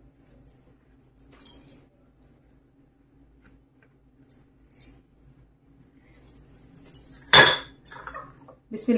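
Hand rubbing ghee into flour in a glass dish: faint rustling with light metallic jingles and clicks from gold bangles, over a steady low hum. A single sharp clink rings out about seven seconds in.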